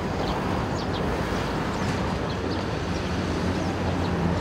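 Roadside traffic noise: a steady low rumble of vehicle engines on the road, growing a little louder near the end, over a noisy wash of wind on the microphone.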